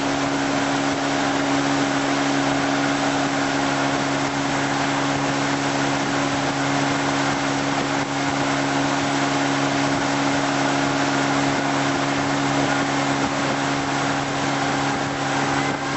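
Tow boat's engine running at a steady speed, an even hum that holds one pitch throughout, with the rush of water and wind, heard from on board.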